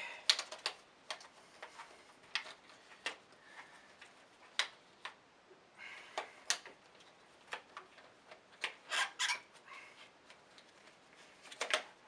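Scattered sharp plastic clicks and taps from a Numatic Henry Quick cordless stick vacuum being handled as its extendable handle is fitted, with a quick run of clicks about nine seconds in.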